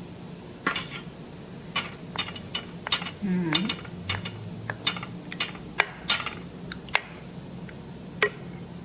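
Irregular sharp clinks and knocks of glass cups and kitchenware against a metal steamer tray, about fifteen over several seconds, over a low steady hum.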